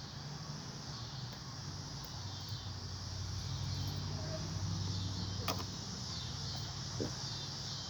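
Outdoor background: a steady high chirring of insects over a low hum that swells in the middle, with a sharp click about five and a half seconds in and a lighter one a little later.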